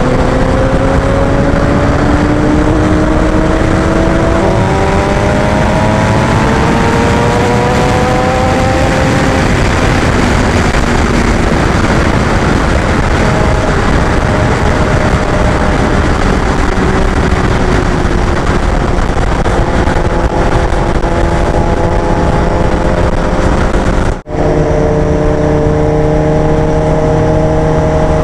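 Sport motorcycle engine pulling up through the revs with heavy wind rush on the microphone, then holding a steady cruising drone. The sound drops out for an instant near the end.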